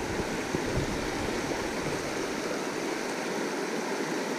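Steady rush of a shallow creek running over riffles and rocks.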